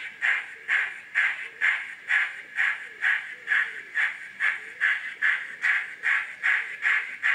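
Zimo sound decoder in a model 0-6-0 narrow gauge steam locomotive, loaded with Digitrains steam sound, playing steady exhaust chuffs as the loco runs, a little over two evenly spaced chuffs a second.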